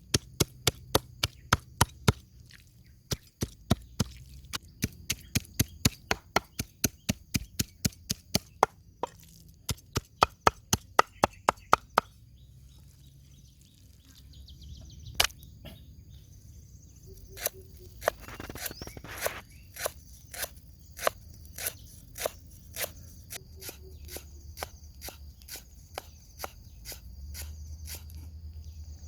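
Knife chopping on a cutting board: a fast, even run of knocks, then a short pause about twelve seconds in, then slower, spaced chops.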